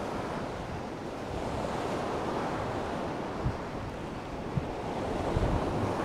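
Black Sea surf breaking and washing up a sandy beach, a steady rushing wash of whitecapped waves. Wind buffets the microphone with a few low thumps in the second half.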